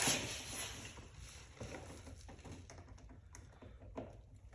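A stubby flathead screwdriver working the screw of an intake hose clamp: a short scraping stretch at first, then faint scattered clicks and taps of the tool on the clamp, with one slightly louder click about four seconds in.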